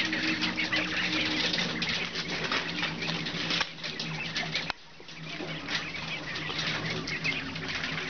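A flock of caged quail chirping rapidly together over a steady low hum. The sound drops away suddenly about halfway through and comes back within a second.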